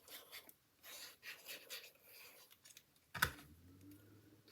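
Soft rustling and small taps of paper card pieces being handled and set down on a craft table, with one sharp tap a little past three seconds. After it, a faint steady drone of a leaf blower running outdoors sets in.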